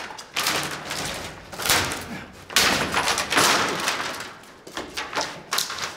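Repeated thuds and bangs as a chain-locked wooden door is pulled and struck to force it open, each hit ringing briefly in a bare room.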